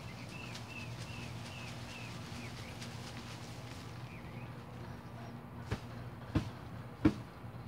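A bird chirping in a quick series of short calls over the first couple of seconds, with one more call a little later. Near the end come three sharp snaps or knocks about two-thirds of a second apart, over a steady low hum.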